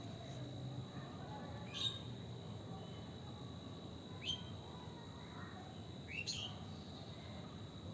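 Bird calls: three short, sharp chirps about two seconds apart, over a steady low background rumble and a faint steady high-pitched tone.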